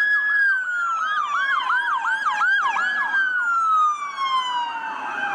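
Toy police car's electronic siren: a long wail that slowly falls in pitch, layered with a fast yelping chirp, about three a second, that stops about three seconds in and starts again near the end.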